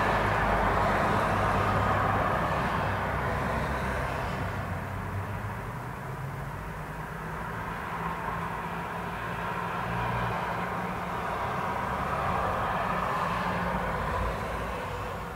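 Passing traffic: the noise of a vehicle fades away over the first few seconds, then a second one swells in about ten seconds in and dies away near the end.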